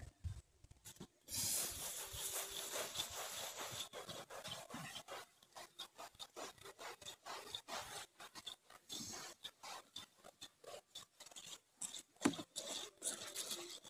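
Small hand brush scrubbing a rubber camper roof with soapy water: quick, rough, repeated rubbing strokes that start about a second in.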